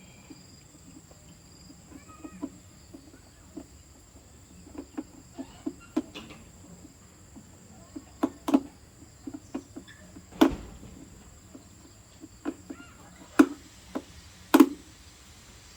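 Irregular light knocks and clicks of hand work on a speaker repair, a dozen or so strikes with the loudest few near the end, over faint steady high-pitched tones.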